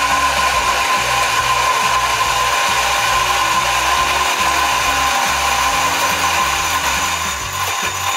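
MiiCoffee CF64V single-dose coffee grinder running, its brushless DC motor driving 64 mm flat burrs: a loud, steady whirring with a high whine that eases slightly near the end.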